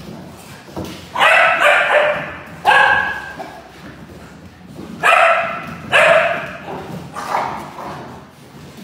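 Dogs barking while playing: about five loud barks spread over the first seven and a half seconds, some in quick pairs.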